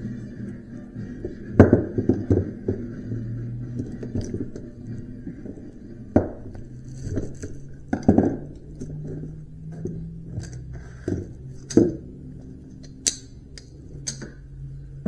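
Irregular sharp knocks and clinks, one every second or two, from hand tools working copper windings out of a cut electric motor stator, with faint music in the background.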